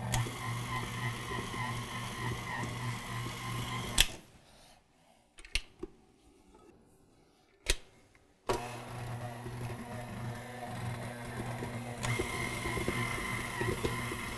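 KitchenAid Artisan tilt-head stand mixer running with a steady motor hum as its dough hook kneads bread dough. About four seconds in it stops with a sharp click, two more clicks come during the quiet pause, and the motor starts again a little past halfway.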